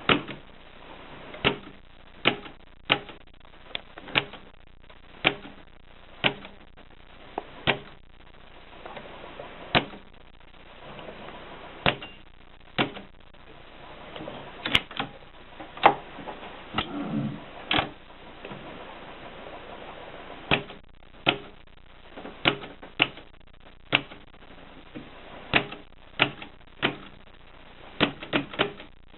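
Mignon 4 index typewriter striking letters one at a time: sharp single clacks at an uneven pace of roughly one or two a second, with a short low rattle about two-thirds of the way through.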